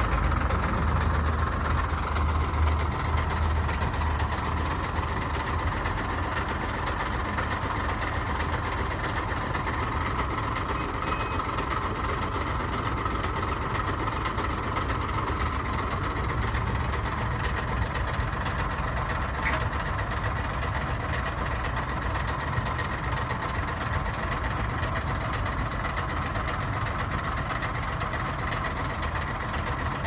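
Heavy truck engine idling steadily, a continuous low rumble, with one sharp click about two-thirds of the way through.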